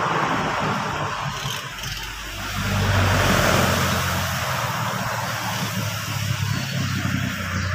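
A motor vehicle engine running with a steady low hum, growing louder about two and a half seconds in and then easing back.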